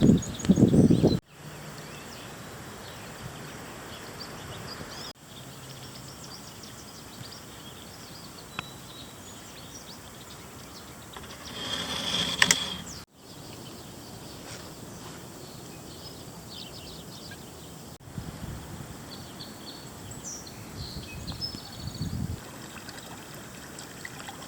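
Outdoor creek ambience in several short cut-together takes: a steady soft rush of flowing water with scattered small bird chirps. A loud rush of noise fills the first second, and a louder burst with a high tone comes a little past halfway.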